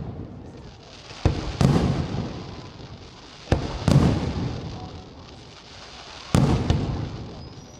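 Aerial firework shells bursting, three times, about every two and a half seconds. Each is a sharp crack followed a moment later by a louder boom that dies away over a second or so.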